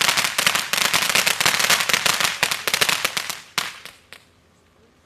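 Ground fountain firework spraying with dense, rapid crackling. It dies out about three and a half seconds in with a couple of last pops.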